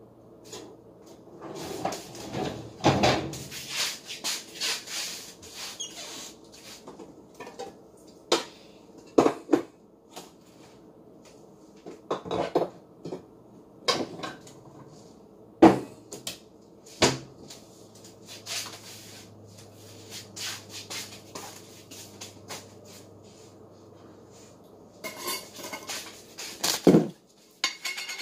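Kitchen clatter: dishes and utensils clinking and knocking in scattered clusters, the loudest knocks about 3, 16 and 27 seconds in. A faint steady low hum runs underneath for a stretch in the second half.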